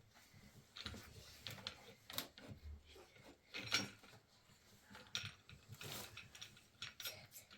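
Irregular clicks, knocks and short scrapes of small hard objects being handled, at uneven spacing with no steady rhythm.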